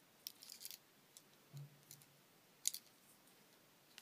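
Faint clicks and light scraping from a Victorinox Spartan pocket knife being handled, a quick cluster in the first second, then one sharper click a little before three seconds.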